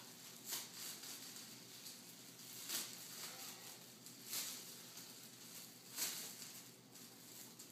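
Plastic packaging bag crinkling and rustling as it is worked off a vacuum part by hand, with a few short, louder crackles scattered through.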